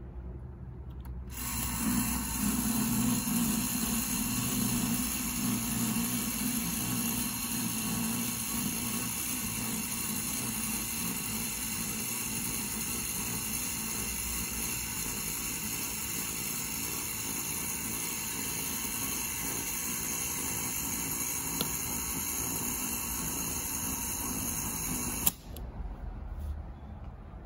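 Motor and gearing of a 1940s Kellermann tin toy plane tower whirring steadily as it swings the toy planes around the tower. It starts about a second in and cuts off with a click near the end.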